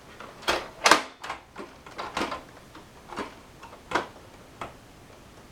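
Computer hardware being handled in and against a metal PC case: an irregular string of knocks and clunks, the loudest about a second in.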